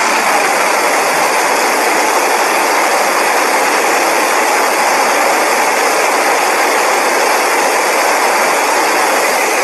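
Edited Godzilla sound effect: a loud, steady, harsh rushing noise with no clear pitch, held without a break.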